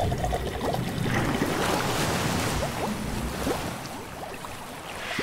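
Water sound effects: bubbling and sloshing with many short rising bubble blips, fading out toward the end.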